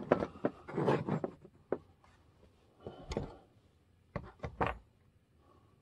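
Small plastic model parts handled on a workbench: a stretch of rubbing and scraping, then scattered light clicks and knocks, with three sharp clicks close together near the end.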